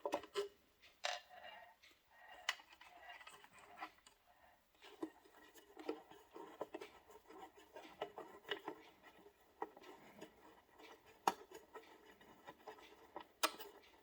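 Faint, scattered small clicks, taps and scrapes of hands and a small hand tool working on a diesel fuel injection control module's housing as it is being opened up.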